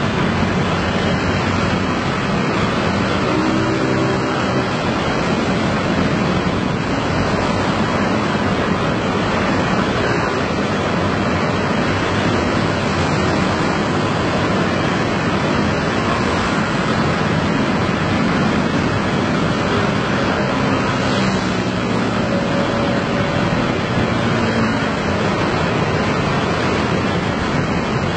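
Dense crowd of motor scooters riding past at close range: a steady, loud drone of many small engines and tyres blending together, with the pitch of single engines rising and falling now and then as they pass.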